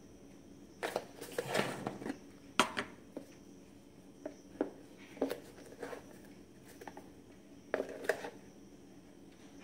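Handling noises: irregular clicks, knocks and rustles as a white plastic container is picked up and handled, with a longer cluster about a second in and another near the end.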